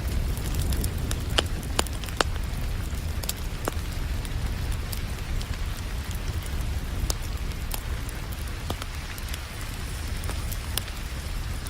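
Wood fire crackling with scattered sharp pops over a steady hiss of rain, with a low rumble underneath. A quick run of louder pops comes about one to two seconds in.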